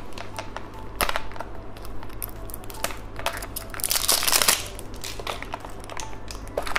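Hard plastic toy candy container being handled and twisted open, giving scattered sharp plastic clicks and creaks. A longer scraping rustle comes about four seconds in.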